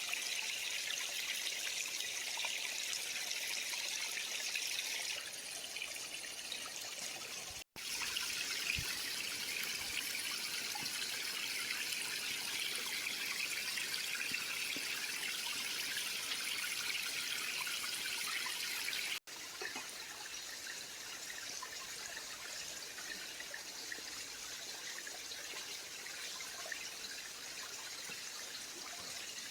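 A creek's water running in a steady trickling rush. The sound cuts out for an instant about a quarter of the way in and again about two-thirds in, and is a little quieter after the second break.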